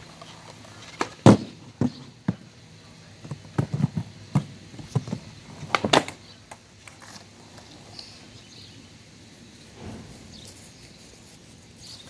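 Skateboard being ridden and flipped on a concrete sidewalk beside a low wooden box. It makes a string of sharp clacks and knocks as the board, wheels and trucks hit the pavement and the box, loudest about a second in and again around six seconds, then dies away.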